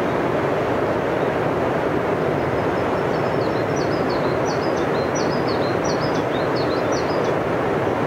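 Fast mountain river in high water rushing over rapids and rocks: a loud, steady rush of water. About halfway in, a small bird sings a short run of high chirps behind it for a few seconds.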